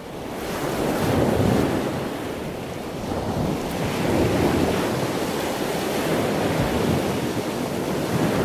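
Rushing surf noise with wind buffeting the microphone, swelling and easing over a few seconds.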